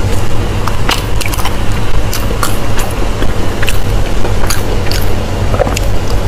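Close-miked eating: a person biting and chewing, with repeated wet mouth clicks and smacks. A steady low hum runs underneath.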